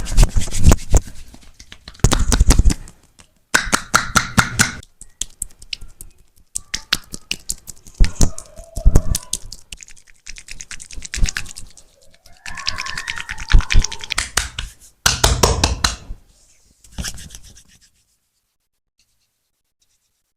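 Barber's massage sounds in short separate bursts: hands slapping, tapping and rubbing rapidly on skin and hair. It goes silent about two seconds before the end.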